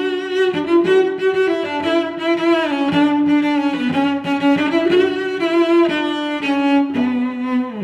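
Background music of bowed string instruments, cello and violin, playing a melody that moves from note to note with a wavering pitch.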